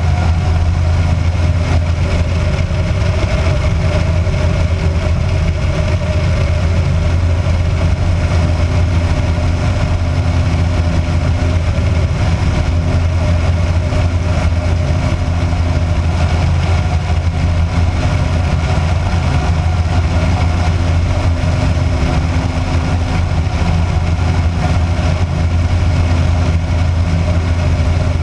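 Kitfox light aircraft's engine and propeller running steadily in flight, a constant low drone with wind rushing over the externally mounted camera.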